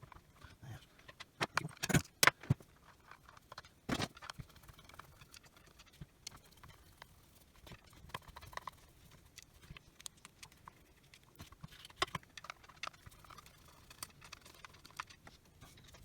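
Scattered clicks and knocks of hand tools and small parts handled on a workbench while a cordless SDS drill is taken apart. There is a cluster of sharper knocks about two seconds in, another about four seconds in and a few more near twelve seconds.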